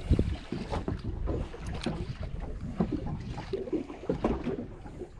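Wind buffeting the microphone and water slapping against the hull of a small drifting boat, with scattered short knocks and clicks.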